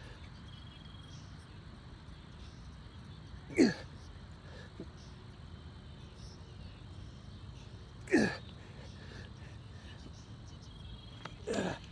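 A man's forceful grunting exhalations during slow push-ups, three in all, about four seconds apart, each short and falling in pitch, the breath of hard exertion.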